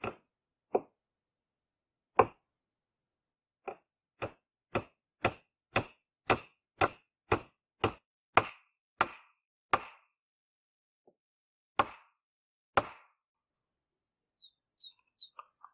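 Hammer blows on the hut's roof, striking the wooden pole that holds down the birch-bark roofing. The single strikes come slowly at first, then about two a second for several seconds, and after a pause two more.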